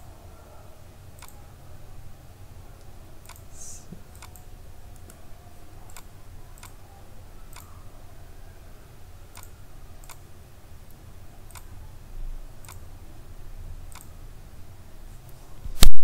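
Computer mouse clicks, a dozen or so at irregular intervals, over a faint low hum. Near the end comes one much louder sharp pop.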